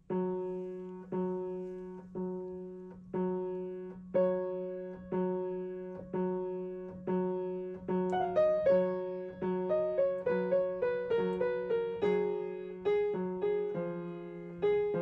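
Solo piano piece: a low chord struck about once a second for the first half, then from about halfway a quicker melody of single notes over the held chords.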